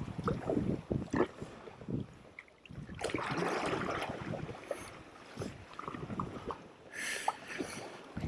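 Sea kayak paddling: paddle blades splashing and water rushing, with a longer wash about three seconds in and a shorter splash near the end, over wind buffeting the microphone.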